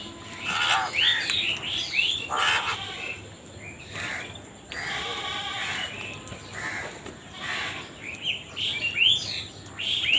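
Crows calling, with harsh caws overlapping quicker chirping from other birds; many short calls follow one another without a break.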